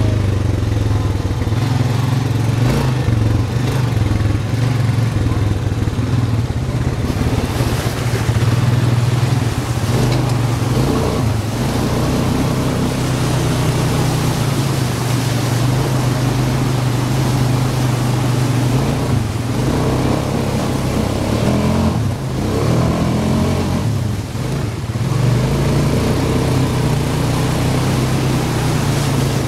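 ATV engine running steadily under way, easing off briefly twice about two-thirds through.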